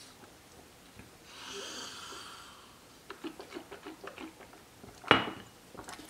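A person with a mouthful of dry workout powder: a long breath through the nose, then small wet mouth clicks as the powder is worked and chewed, and a sudden short loud burst about five seconds in.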